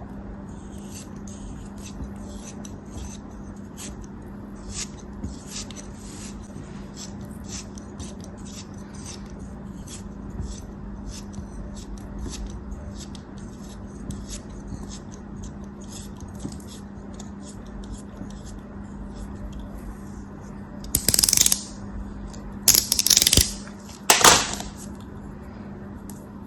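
A blade cutting a crumbly material, giving many small crisp crackles and light scrapes, with three louder crunching scrapes near the end. A low steady hum sits under it.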